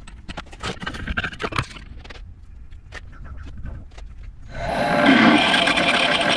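Scattered clicks and knocks of metal parts and tools being handled. About four and a half seconds in, a machine tool starts abruptly and runs much louder, a dense mechanical rattle with a few steady tones in it.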